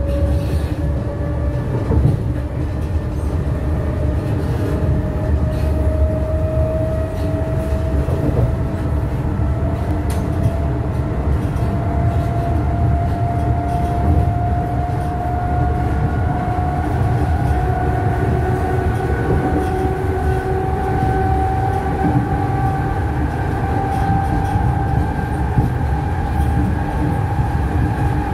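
Berlin S-Bahn class 485 electric train running, heard on board: a heavy rumble of the running gear under a motor whine that climbs slowly and steadily in pitch as the train gathers speed, with a few knocks from the wheels over rail joints.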